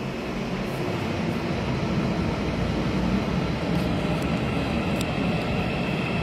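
Subway train running through the station: a steady rumble that builds slightly, with a thin high whine joining in about four seconds in.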